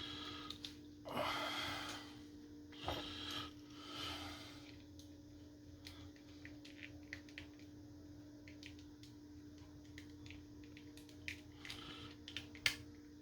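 Small plastic clicks and taps of a Nintendo Switch Joy-Con controller shell and its small parts being handled and closed up by hand. The clicks are scattered and come thickest near the end. There are a few short breathy rushes of noise in the first few seconds.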